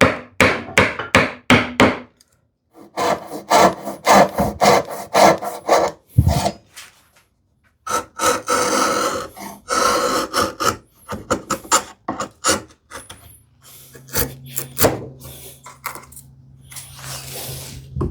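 Hand saw cutting a wooden tenon in runs of quick back-and-forth strokes, broken by short pauses. The strokes give way to quieter, scattered rubbing and knocks in the last few seconds.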